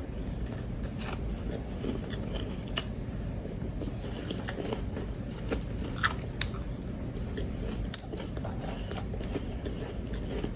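Close-up biting and chewing of powdery frozen ice from a blender jar: a run of crisp crunches and crackles over a steady low chewing rumble, with the sharpest bites about six and eight seconds in.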